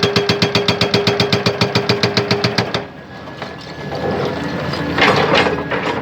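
Hydraulic breaker on a Hyundai excavator hammering hard rock in fast, even blows, about ten a second, which stop under three seconds in. The excavator's engine runs on after that, with a few louder rough bursts near the end.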